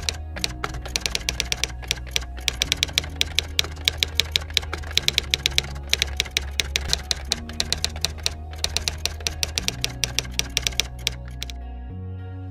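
Typing sound effect, runs of rapid key clicks with short pauses, over background music of sustained low chords. The clicks stop shortly before the end and the music carries on alone.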